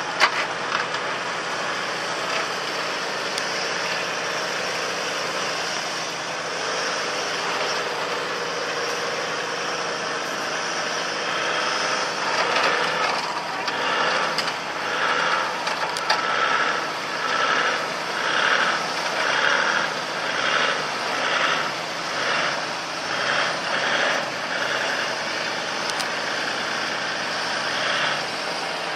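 Toyota Land Cruiser 100 straining to climb out of a waterlogged ditch, its engine running under load and its wheels churning mud and water as traction slips. From about halfway the sound surges and falls in a regular rhythm, roughly one pulse every three quarters of a second.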